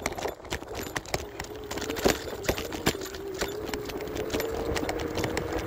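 Isinwheel S9 Max electric scooter's motor whining as it rides along, a steady tone that starts about a second in and creeps slightly higher, with a second lower tone joining near the end. Frequent sharp clicks and knocks from the scooter rattling over the pavement run throughout.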